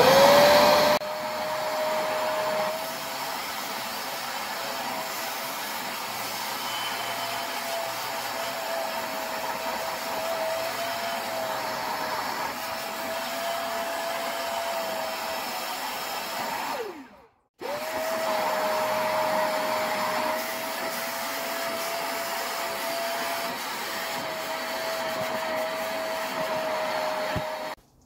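Portable carpet extractor's suction motor starting up with a rising whine and running steadily as its hand tool is worked over a car floor mat, shampooing the carpet. The whine falls away about seventeen seconds in, starts up again a moment later, and cuts off just before the end.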